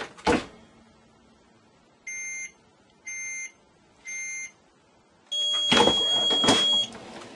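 Heat press timer beeping three short times about a second apart, then a louder long beep over a burst of noise and two knocks, the signal that the press time is up.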